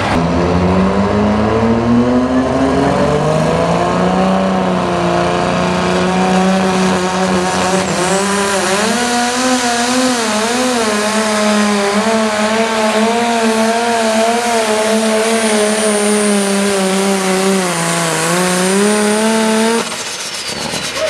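Minneapolis-Moline pulling tractor's turbocharged engine running at full power, dragging the weight-transfer sled down the track. The pitch climbs over the first few seconds and holds with small wobbles. Near the end it sags, picks up again, and then cuts off abruptly.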